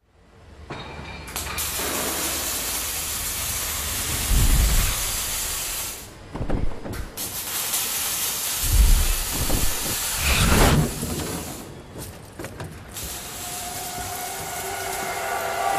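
V8 Supercar racing sound: a loud hissing roar with heavy low thumps, broken by a couple of brief cuts. Near the end it turns into a steady engine note with a clear pitch, as from the onboard camera.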